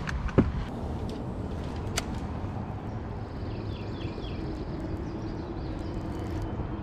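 Wind rumbling on the microphone, with a few sharp clicks near the start and one about two seconds in. A short run of faint high chirps comes around the middle, and a faint steady hum sets in after it.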